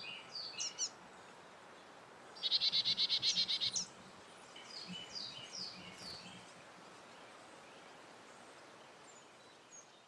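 A songbird singing: a rapid, even trill lasting about a second and a half, starting about two and a half seconds in, with a few short falling notes before and after it, over faint outdoor background noise that fades out near the end.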